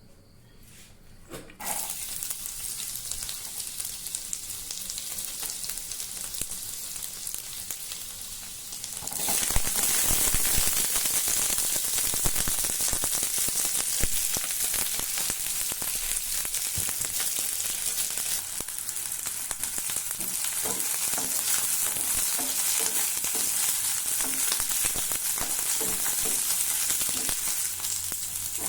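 Food sizzling in hot oil in a pan while chilli idli is being made. The sizzle becomes much louder about nine seconds in, as if more food went into the hot oil, and carries on with small crackles and ticks.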